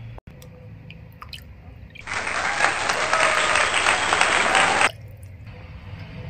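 Water pouring in a thin stream from a small brass kettle into a miniature clay pot, a steady splashing for about three seconds that starts and stops abruptly.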